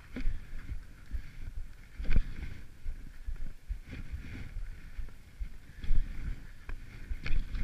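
Skis sliding over packed snow with a steady hiss, under gusty wind rumble on a body-worn action camera's microphone. A few sharp knocks break in, loudest about two, six and seven seconds in.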